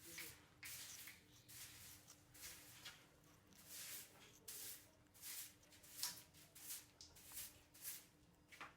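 A parrot nibbling and crunching a fresh chili with its beak: a faint, irregular run of short crisp crackles, a couple each second.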